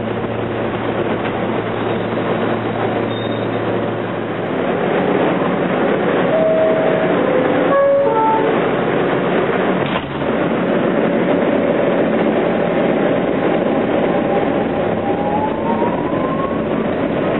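R160B Siemens subway car running on elevated track, heard from inside the car as a steady rumble and rattle. Short stepped tones sound around the middle, and a thin electric whine rises in pitch near the end.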